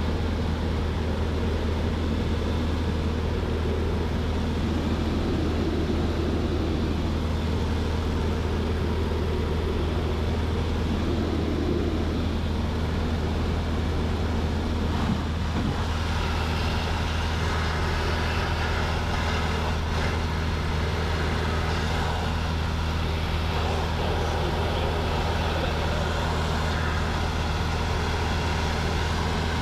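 Piper PA-28 Archer's four-cylinder Lycoming engine and propeller droning steadily in flight, heard inside the cabin as a constant low hum with wind and airframe noise.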